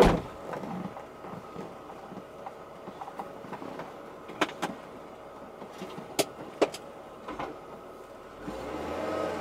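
Knocks from the rear suspension of a BMW E39 Touring, heard from inside the cargo area while driving over bumps, over steady road noise: one loud bang right at the start, then several sharper single knocks about four and a half, six and seven and a half seconds in. It is the unusual banging over bumps that the owner suspects comes from the left rear shock mount; the road noise grows louder near the end.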